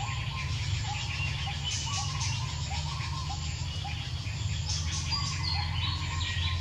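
Outdoor animal chirping: a short call repeating about twice a second, with scattered higher chirps, over a steady low hum.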